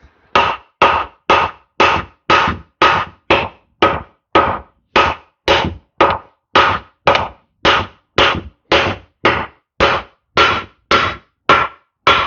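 Hammer striking metal in a steady run of blows, a little over two a second, each blow with a short metallic ring.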